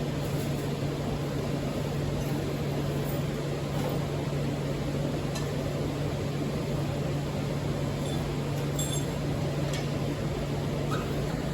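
Yamaha YZ450 dirt bike engine idling steadily as a low, even hum, not yet revved, with a few faint clicks.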